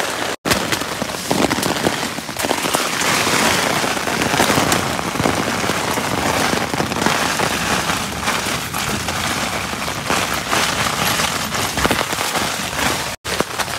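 Heavy rain drumming on a tent's fabric, heard from inside the tent as a dense, loud patter of countless drops. It breaks off for an instant twice, about half a second in and near the end.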